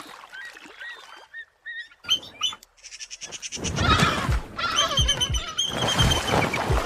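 Bald eagles calling: series of short, high, piping whistled notes. About three and a half seconds in, a louder rushing noise with low thumps joins the calls.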